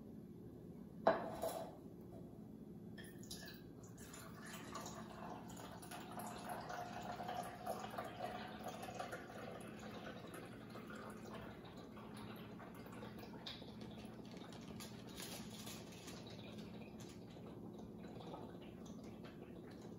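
Beef broth poured from a carton into a glass measuring cup: a faint, steady stream of liquid filling the cup. A single knock about a second in.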